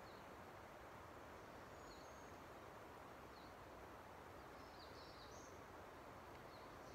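Near silence: faint woodland ambience, with a few brief, high bird chirps scattered throughout.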